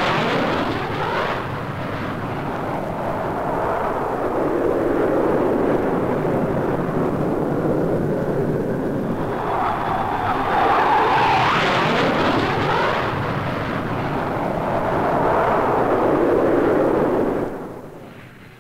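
Jet noise from a Gloster Javelin's twin Armstrong Siddeley Sapphire turbojets as it flies low past, loud and rushing, swelling twice: once at the start and again about ten seconds in. The roar falls away sharply about a second before the end.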